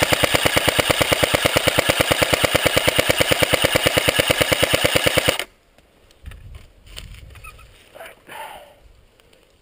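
Airsoft gun firing full-auto, a rapid even stream of about eleven shots a second, in one long burst that stops about five and a half seconds in.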